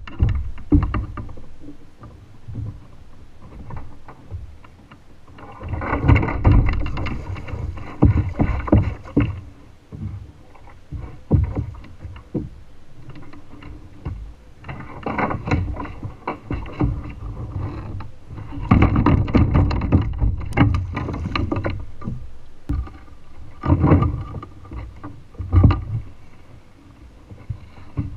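Hooked gar thrashing and splashing at the surface beside a kayak, in several bursts of a few seconds each, with water lapping against the hull between them.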